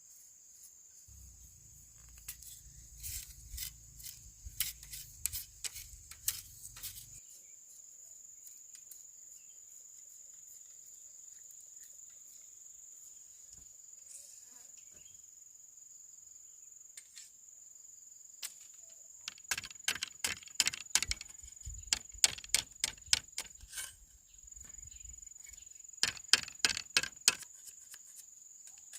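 Steady high-pitched chirring of crickets, with three bouts of sharp clicks and light knocks: one a couple of seconds in, a louder one past the middle, and another near the end.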